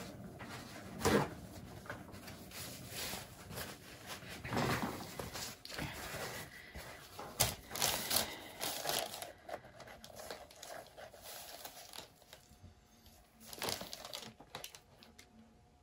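Irregular crinkling and rustling with light knocks as a canvas of wet acrylic paint is spun on a turntable. The noises die away a little before the end as the spin stops.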